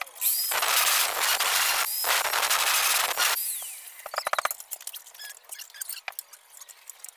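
Electric drill boring handle holes through an aluminium sliding-door frame: two loud grinding runs of about a second and a half each, then a brief clatter about four seconds in.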